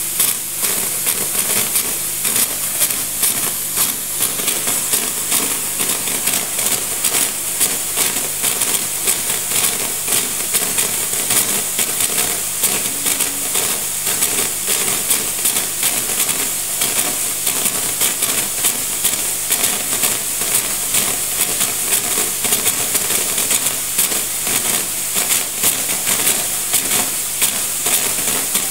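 Gaggia Classic Pro espresso machine steam wand blowing steam into a towel: a steady hiss with a fine crackle running through it.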